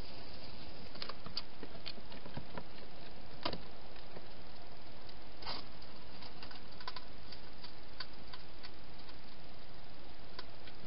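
Hedgehog feeding at bowls inside a plastic feeding box: scattered sharp clicks and ticks over the trail camera's steady hiss.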